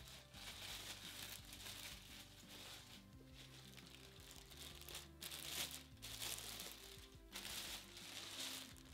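Clear plastic bag crinkling in several bursts as an LED moving-head light is pulled out of it, over quiet background music.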